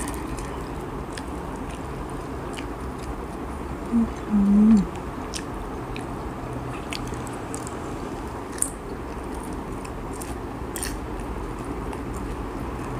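Close-up biting and chewing of a crispy fried banana spring roll (popia pisang), with scattered small crunchy clicks. A short hum is heard about four seconds in.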